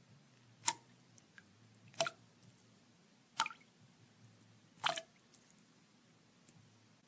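Water drops falling one at a time: four clear drips about a second and a half apart, each a short plink, with a few much fainter drips between them.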